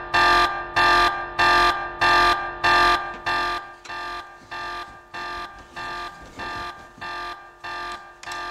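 Electronic alarm beeping in a steady rhythm, about one and a half harsh buzzy beeps a second; it drops to a lower level about three and a half seconds in.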